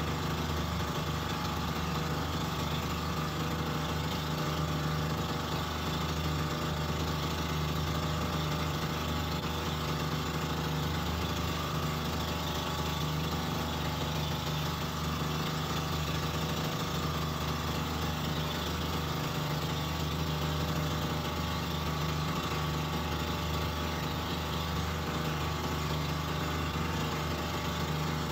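Outrigger boat's (bangka's) engine running steadily under way, an unbroken even drone.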